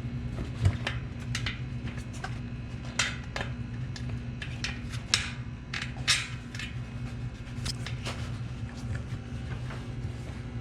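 Bicycle inner tube being pulled out of a tire by hand: irregular rubbery rubs, scrapes and light clicks, over a steady low hum.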